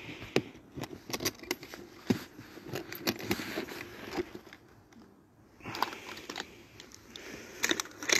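Handling noise: rustling and irregular sharp clicks close to the microphone, with a short lull about five seconds in and a cluster of louder clicks near the end.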